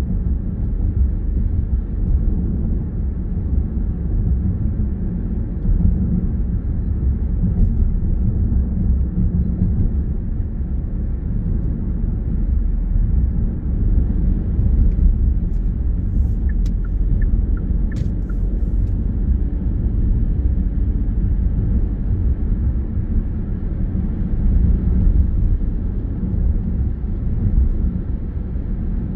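Steady low rumble of a car's engine and tyres on the road, heard from inside the cabin while cruising. A few faint clicks come a little past the middle.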